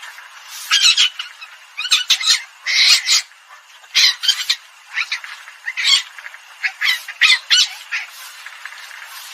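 Recorded palm civet calls played as a hunting decoy: harsh, high squawks in quick irregular clusters, about one cluster every second. The sound is thin, with no low end.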